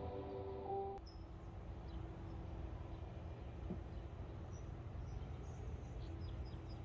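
Background music ending about a second in, then quiet outdoor ambience: a steady low rumble with a few short, faint bird chirps.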